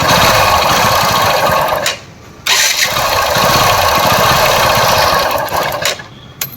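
Bajaj Discover 100cc motorcycle engine being cranked twice, each attempt lasting about three seconds with a short pause between. It does not settle into a steady run, with a half litre of Harpic toilet cleaner mixed with petrol poured into the engine.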